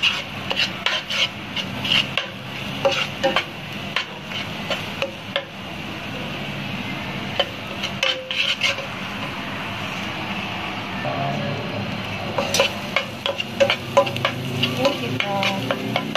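Beaten egg sizzling in butter in a non-stick frying pan while a wooden spatula stirs and scrapes it, with many light taps of the spatula against the pan. The tapping eases off for several seconds in the middle, leaving mostly the steady sizzle, then picks up again near the end.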